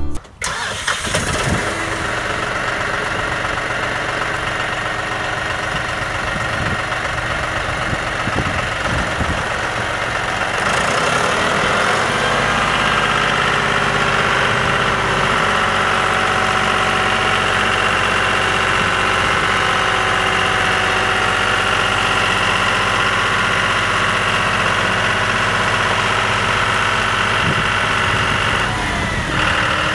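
John Deere 5055D tractor's three-cylinder diesel engine running steadily at a low speed, then revving up about a third of the way in and holding a higher, louder speed as the tractor drives.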